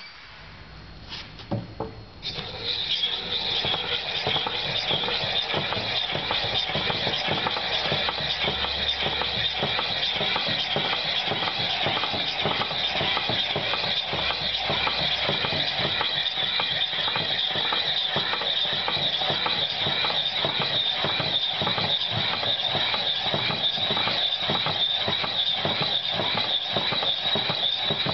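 A few knocks, then about two seconds in a hand-held MiniFacer flange facer starts and runs, its arm turning the cutting tool across the face of a steel flange: a steady high whine with a regular clicking, two or three clicks a second.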